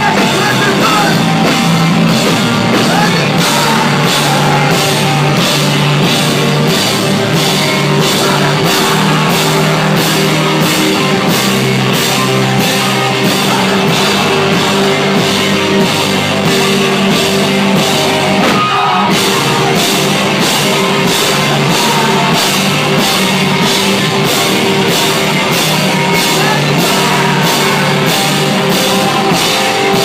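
Post-hardcore band playing live and loud: electric guitar, bass guitar and a drum kit with steady, regular cymbal hits, and vocals over the top.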